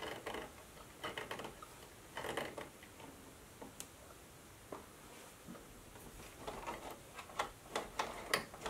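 Quiet, irregular clicks and taps as hands work at the needle and presser foot of a We R Memory Keepers Stitch Happy sewing machine, freeing fabric that is not feeding. A quicker run of clicks comes near the end.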